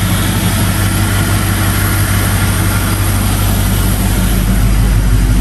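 1996 Chevrolet Impala SS's 5.7-litre LT1 V8 idling steadily with the air conditioning switched on, a low hum with a broad steady hiss over it.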